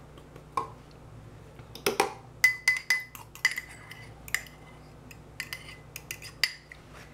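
Metal kitchen utensil clinking against a small ceramic cup as melted butter is scraped out of it into a measuring jug: a quick run of sharp clinks with a brief ring, starting about two seconds in and stopping shortly before the end.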